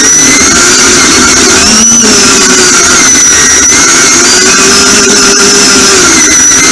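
Lawn tractor engine running loud under load, its note wavering and dipping briefly about two seconds in before picking back up, with a high steady whine above it.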